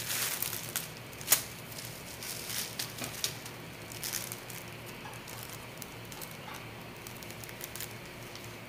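Plastic bubble-wrap packaging crinkling and crackling in the hands as a replacement LCD is unwrapped, with one sharp click about a second and a half in. The handling thins to faint, scattered ticks after about five seconds.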